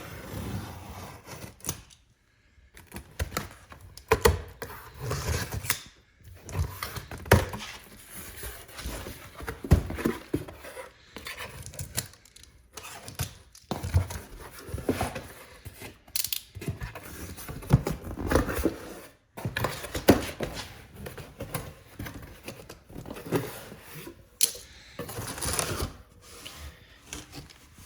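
A cardboard box being opened and a pair of car taillights unpacked by hand: irregular knocks, clicks and handling noises of the packaging.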